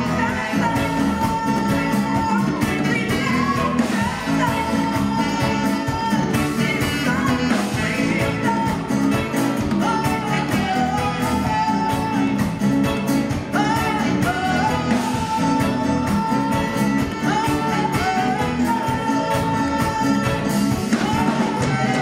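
Live band playing a song, with a woman singing the lead melody over electric guitar, keyboard, bass and drums.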